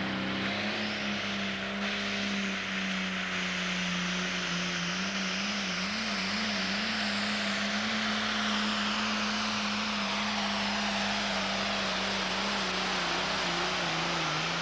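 Turbocharged diesel engine of an International Pro Stock pulling tractor running flat out under load during a pull: a steady high drone with hiss over it. The engine pitch wavers briefly about halfway through.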